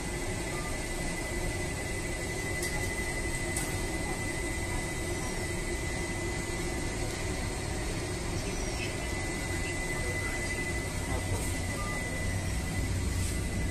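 Pritul rack oven running: a steady whir and low hum from its blower, with a thin, constant high whine.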